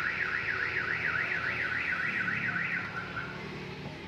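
Car alarm siren warbling rapidly up and down, about four to five sweeps a second, fading out about three seconds in.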